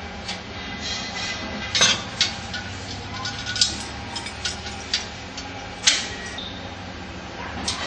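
Metal frame strips and bolts clinking and knocking together as the strips are fitted and bolted by hand: a handful of irregular, sharp metallic clicks.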